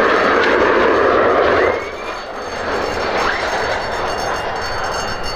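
Fighter jet engines on landing: a loud, steady jet rush from a touching-down F-16 cuts off abruptly a little under two seconds in. It gives way to the quieter jet noise of a landing F-15, with faint rising whines.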